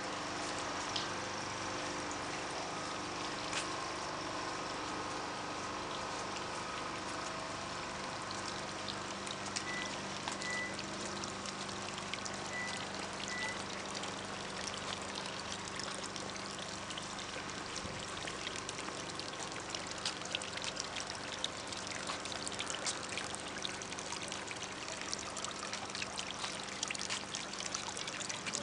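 Water trickling and pouring steadily, with a patter of small drips that grows busier in the second half.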